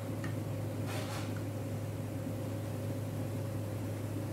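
Jangiri batter frying in a pan of hot oil, sizzling steadily, with a couple of brief crackles about a second in. Under it runs a steady low hum.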